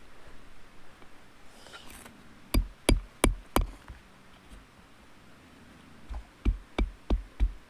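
Hammer blows on wood in two runs of four or five strikes, about three a second: one run about two and a half seconds in and another near the end.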